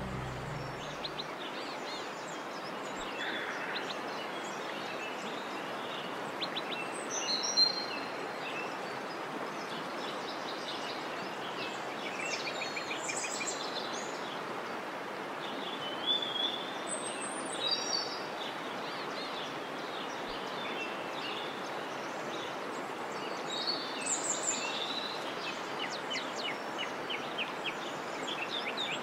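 Songbirds chirping and trilling on and off over a steady outdoor hiss. A little background music fades out about a second in.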